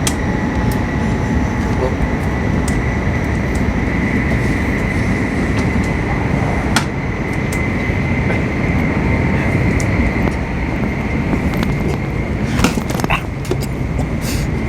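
Cabin noise of a Shinkansen bullet train running at speed: a steady low rumble with a faint high whine, and a few sharp clicks about halfway through and near the end.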